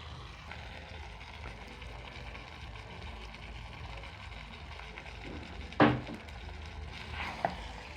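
Steady low background of a pot of beans simmering on the stove, with one short knock about six seconds in and a faint click shortly after.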